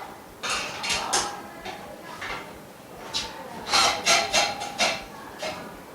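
Frame bars of a dust-free room being handled and fitted: scattered knocks and clatter with some scraping, the loudest a quick run of knocks about four seconds in.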